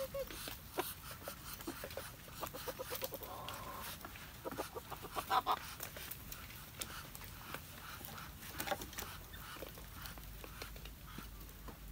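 Chickens clucking, with a quick run of clucks about three seconds in and a louder cluck about five seconds in, among light clicks and knocks.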